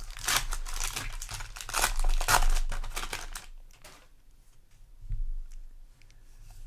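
Trading-card booster pack wrapper crinkling and being torn open, loudest about two seconds in, then quieter after about three and a half seconds with a few faint clicks.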